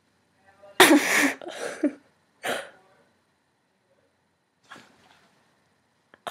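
Short, loud, breathy vocal outbursts from a young woman, like rasping mock screams. There is one long burst about a second in, a shorter one right after, another about a second later, and a faint one near the end.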